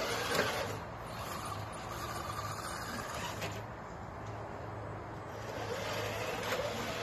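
Radio-controlled scale crawler truck's electric motor and gears whining as it climbs over logs, the pitch rising and falling with the throttle, with a sharp knock about half a second in.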